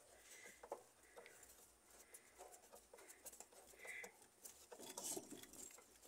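Near silence, with faint scattered ticks and light scrapes from a Phillips screwdriver turning a screw that holds a washing machine's drain pump in place.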